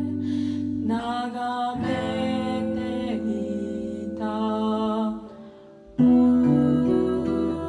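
Music: slow, sustained melodic tones with a held low drone, fading out about five seconds in before a louder chord comes in about a second later.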